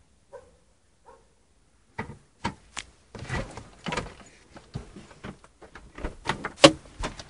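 Two short animal cries in the first second or so, then from about two seconds in a run of knocks and bumps from the camera being handled inside a car, the loudest near the end.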